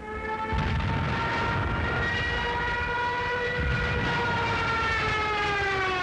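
Junkers Ju 87 Stuka's wind-driven dive siren (Jericho trumpet) wailing as the plane dives, over a low rumble; the pitch rises slightly, holds, then falls toward the end.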